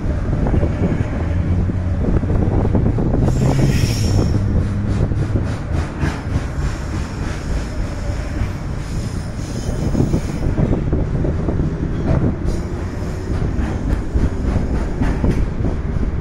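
KiwiRail container freight train's wagons rolling past: a steady heavy rumble with repeated clicks of wheels over rail joints, and a brief high wheel squeal about four seconds in.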